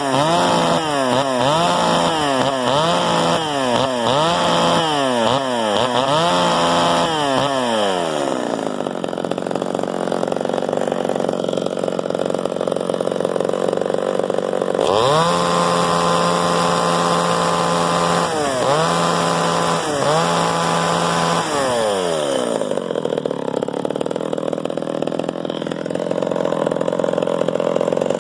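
Zenoah G300 top-handle chainsaw's small two-stroke engine blipped to full revs again and again in quick succession, then dropping to idle about eight seconds in. Around fifteen seconds in it is held at full revs for a few seconds, blipped twice more, and falls back to a steady idle.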